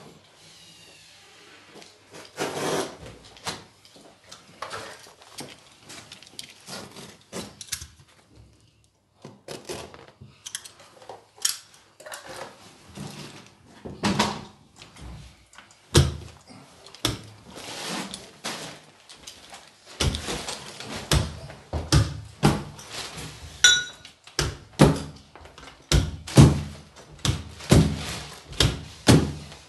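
Carpet knee kicker being bumped with the knee, a run of dull thuds that turns steady at about two a second in the last third, as the carpet is stretched onto the gripper to take out its bubbles. Scattered knocks and clicks of handling come before the steady run.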